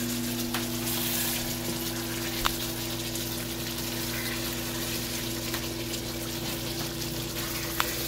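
Pots bubbling on an electric stove: a pot of water boiling beside beef stewing in its yogurt gravy until the meat is soft, making a steady bubbling hiss over a steady low hum. A wooden spoon knocks sharply against the pot twice.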